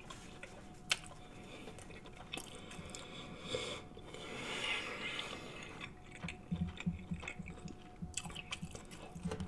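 A person chewing a mouthful of seafood boil with the mouth closed: soft, wet mouth sounds with small clicks, turning into a steady chewing rhythm in the last few seconds.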